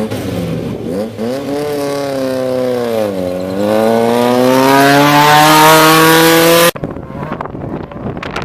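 Off-road race vehicle engine: the revs fall for about three seconds, then climb steadily and grow louder as it accelerates, until an abrupt cut near the end.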